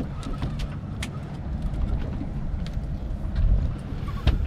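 Low, steady rumble of a boat's engine and wind on deck, with scattered sharp clicks; the strongest click comes near the end.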